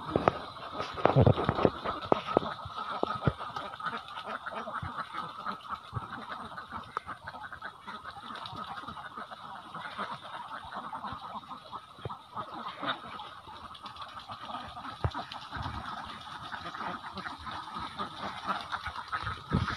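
A large flock of domestic ducks quacking continuously, many calls overlapping into a steady chatter, with a few low thumps about a second in.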